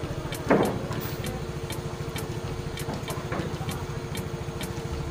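A small engine idling steadily with a fast, even pulse, with one short louder sound about half a second in.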